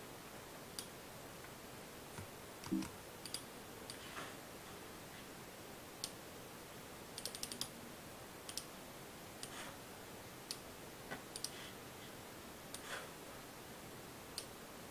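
Faint, scattered clicks of a computer keyboard and mouse as text is selected and copied, with a quick run of several clicks about seven seconds in.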